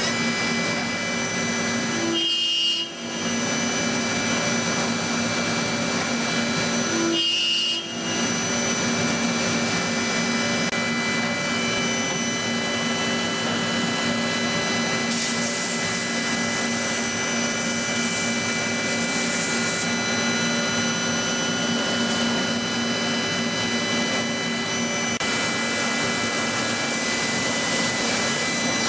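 Multi-axis CNC machine tool running: the spindle gives a steady whine over machining noise, winding up at the start and down near the end, and cuts out briefly twice. Stretches of hiss come in partway through, typical of coolant spray.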